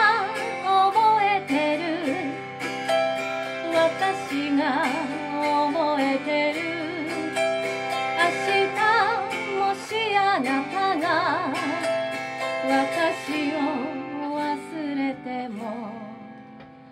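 Autoharp strummed in sustained chords, with a woman's voice singing over it in wavering held notes. Near the end the playing thins out and the last chord fades away.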